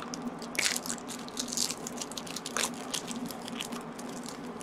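Foil Magic: The Gathering Alliances booster-pack wrapper crinkling in quick crackly bursts as it is handled and opened by hand, dying down after about three seconds.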